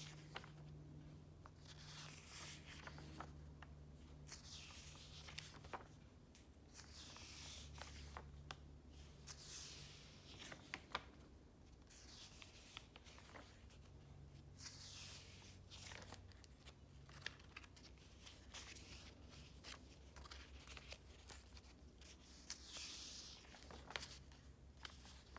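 Pages of a bound paper journal being turned one after another, a soft swish of paper every two to three seconds, with small taps and rustles of the paper in between.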